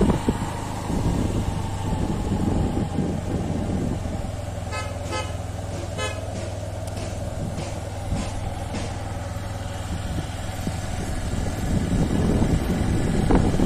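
A road vehicle running steadily as it drives along, with a low engine hum. Short horn toots sound twice, about five and six seconds in.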